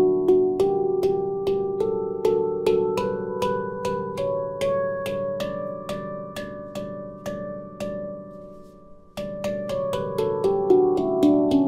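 17-note stainless-steel handpan in a D major scale, played with the fingers: single notes struck in a steady, even pulse, each ringing on, climbing up the scale and fading out about eight seconds in. After a short pause, quicker notes come back, stepping down the scale.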